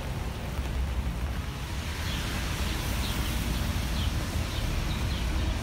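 Wind buffeting the microphone, a heavy low rumble over a steady hiss of street noise, with a few faint short high chirps in the middle.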